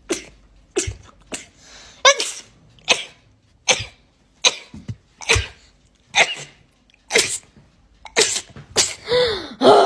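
A person sneezing in a rapid-fire fit: about a dozen quick, sharp sneezes, roughly one every three-quarters of a second, closing near the end with a longer, voiced one.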